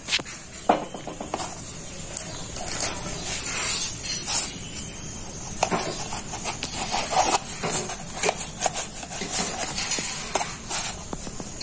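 A knife cutting through a rolled flatbread on a metal tray: irregular clicks and scrapes of the blade, over a steady hiss.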